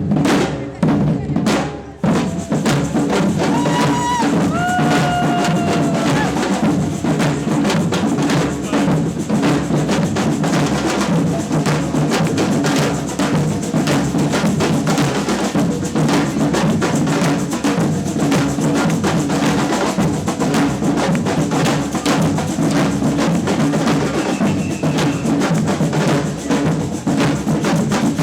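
Samba percussion band playing a steady, dense drum groove of bass drums, snare drums and other drums, with a few short sliding high tones about four seconds in.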